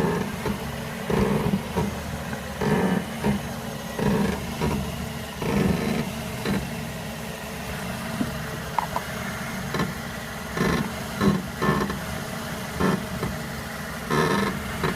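Repeated short creaks from the front suspension near the driver's side wheel of a 2006 Mazda 6, coming every second or so with some in quick pairs, over a steady hum. The owner has found no play at the wheel, and greasing a bushing has not cured it.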